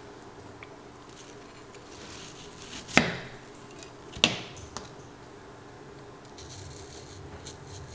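Kitchen knife knocking sharply against a granite countertop twice, about a second apart, with a fainter tap just after, while apple cubes are handled.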